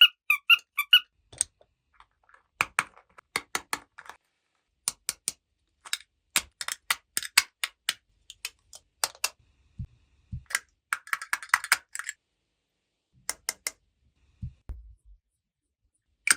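Small plastic toy pieces clicking and tapping as they are handled, in irregular clusters. It opens with a short run of high chirps, has a quick rattling flurry about eleven seconds in, and a few soft low thuds.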